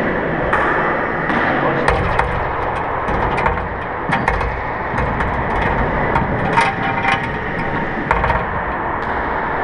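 Scattered sharp taps and clicks on a handball court's wooden floor over a steady background hum.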